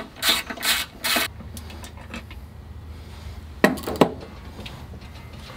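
Small hand ratchet working a bolt on a big-block Chevy's valve cover: a few quick rasping strokes in the first second or so. Later come two sharp metallic clinks half a second apart.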